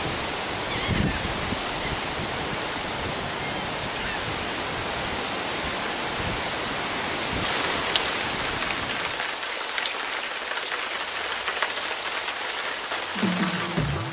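Steady rain falling, an even wash of noise from a storm that has just arrived.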